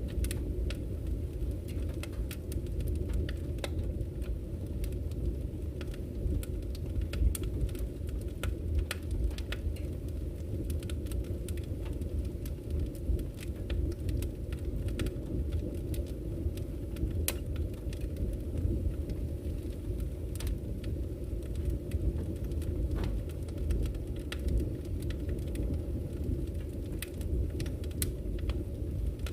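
Wood fire burning in a fireplace: a steady low rumble of flame with frequent irregular sharp crackles and pops from the burning logs.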